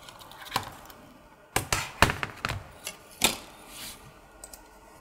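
Hand tools and parts being handled on an electronics repair bench: a run of sharp clicks, taps and knocks, loudest in a cluster around two seconds in and one more near three seconds, with a few faint ticks near the end.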